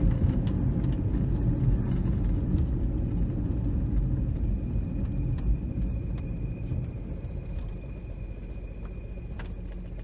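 2004 Chevy Cavalier's 2.2L Ecotec four-cylinder running rough at low revs near idle, heard from inside the cabin; the uneven rumble is a random multiple-cylinder misfire (P0300), acting like it's running on two or three cylinders. It gets quieter in the last few seconds.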